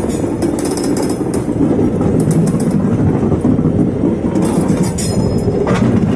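Heritage railway train running on the track: a steady heavy rumble with scattered sharp metallic clicks and rattles, and a brief louder clatter near the end.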